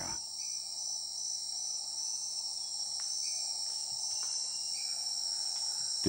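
Tropical forest insect chorus: a steady, high-pitched drone with a low hiss beneath it, and three faint short notes.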